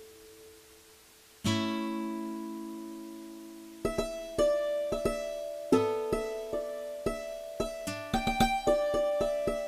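Background music on a plucked acoustic guitar or ukulele: a single strummed chord rings out and fades, then a gentle picked melody begins a little past the middle and grows busier near the end.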